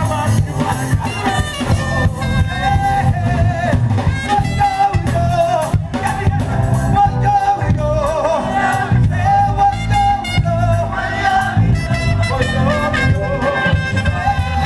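Live band of drums, bass guitar, lead guitar and keyboards playing a song with a steady beat, a melody line with held notes over the top, and singing.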